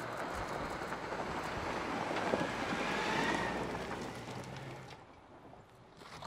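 Ford Expedition SUV driving along a dirt trail: tyres on loose dirt and gravel with a low engine hum underneath. It grows louder for a few seconds, then fades away a little before the end.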